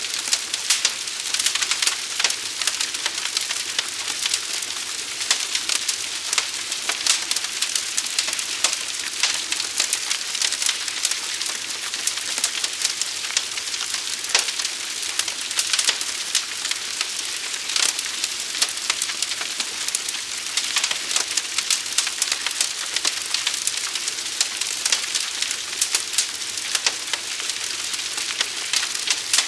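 A fire burning, with constant dense crackling and small pops over a steady hiss.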